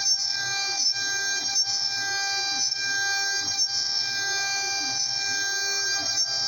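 CNC router cutting wood: a steady high whine from the spindle, under motor tones that sweep up and down again and again as the axes speed up and slow down along the toolpath, with brief dips about once a second.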